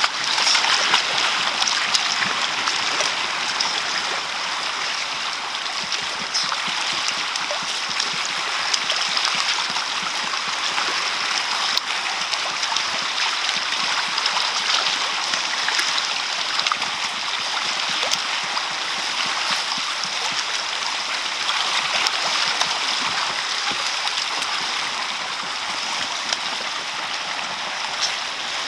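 Sea water churning and splashing steadily as a crowd of Antarctic fur seal pups swims and dives at the surface, with scattered small sharp splashes throughout.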